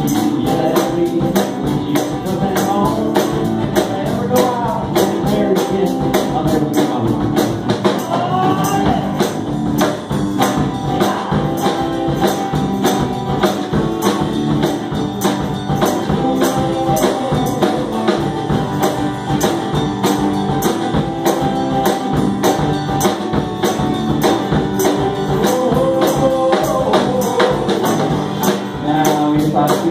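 Small live band playing: a drum kit keeping a fast, steady beat on hi-hat and cymbals, with guitars.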